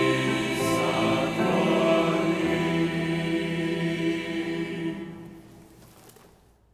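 Church choir singing the closing chords of a hymn, holding long sustained notes. The chord shifts a couple of times, then the sound dies away from about five seconds in.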